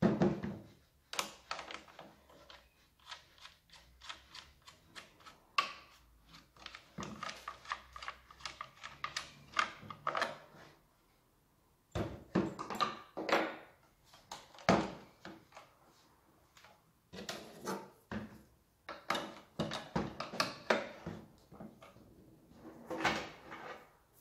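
Plastic and metal parts of a Husqvarna T540i XP cordless chainsaw being handled: irregular clicks, taps and knocks as the sprocket cover is taken off and the guide bar is set in place on a wooden workbench.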